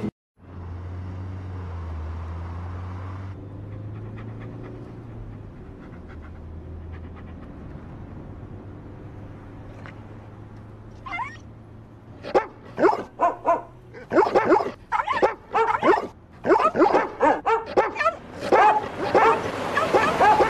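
A low steady hum, then from about eleven seconds in, dogs barking in quick overlapping bursts that grow louder toward the end.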